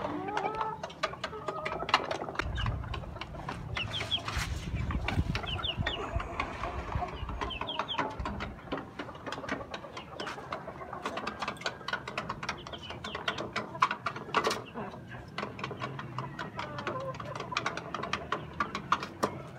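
Golden heavy buff hens clucking softly while pecking feed, their beaks striking the metal feeder tray in many quick sharp clicks. A low rumble runs under them from about two to eight seconds in.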